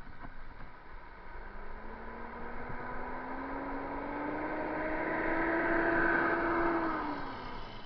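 A motor vehicle passing close by: its engine note rises slowly as it approaches, is loudest about six seconds in, then drops in pitch as it goes past.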